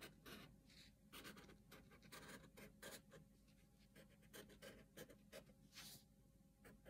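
Wooden pencil scratching faintly on paper in quick, short, irregular strokes as it draws a jagged zigzag line.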